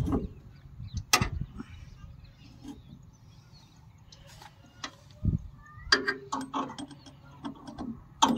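Metal parts on a combine harvester's cutter gearbox clicking and knocking as a nut and fitting are worked by hand: one sharp click about a second in, then a cluster of short clicks and knocks in the second half.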